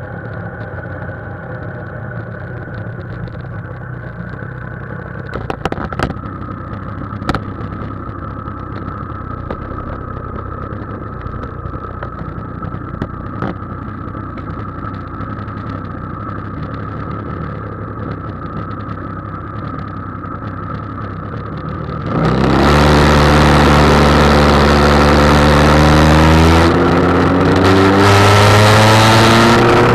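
GoPed GSR40 scooter's small two-stroke engine running at a steady low idle for about twenty seconds, with a few sharp clicks. About 22 seconds in, the throttle opens: the engine gets much louder and its pitch climbs as it accelerates, dips briefly, then climbs again.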